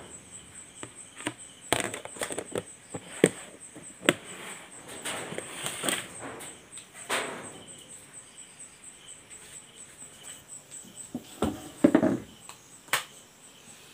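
Plastic food containers handled and set down on a table: scattered sharp knocks and clicks, with short rustles, over a faint steady high-pitched pulsing tone.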